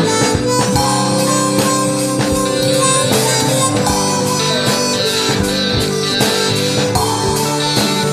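Instrumental break in a rock song: a drum kit keeps a steady beat under guitars, with a harmonica playing held lead notes.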